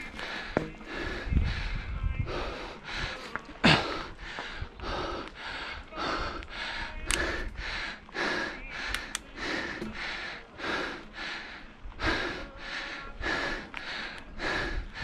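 A mountain biker panting hard and rhythmically from exertion, about two breaths a second, with a sharp knock about four seconds in.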